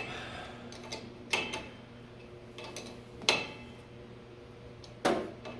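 Half-inch open-end steel wrench clinking against a carburetor mounting nut as it is worked and repositioned to tighten the nut: three sharp metallic clicks about two seconds apart, the middle one ringing briefly.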